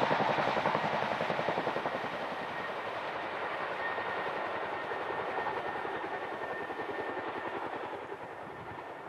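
Boeing CH-47 Chinook tandem-rotor helicopter's rapid rotor-blade chop, fading steadily as the helicopter flies away.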